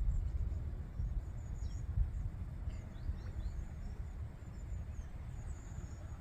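Small birds chirping in quick, high, downward-sweeping calls over a steady low rumble.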